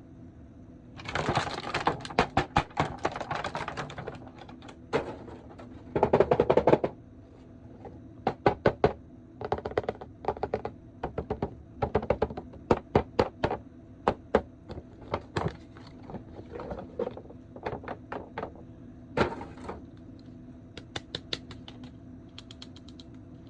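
Plastic rustling and a long series of sharp clicks and taps as an action figure and its plastic packaging are handled, with the loudest rustling about a second in and again around six seconds. A faint steady hum runs underneath.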